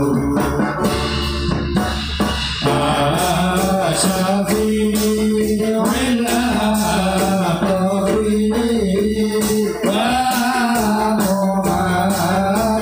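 Angguk dance music: a held, slowly bending melody, partly sung, over steady drumming with jingling tambourine.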